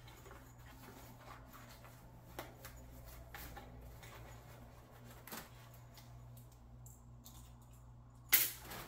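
Faint clicks, taps and rustles of a small object being handled and fiddled with, over a steady low hum, with one louder knock just before the end.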